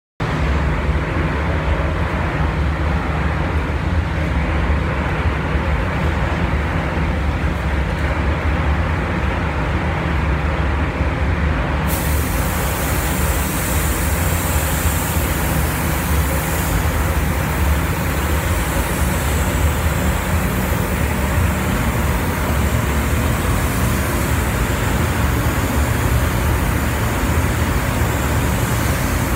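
Steady low rumble of a paint booth's ventilation, joined about twelve seconds in by the sudden hiss of a gravity-feed spray gun's compressed air as it sprays paint onto a car hood.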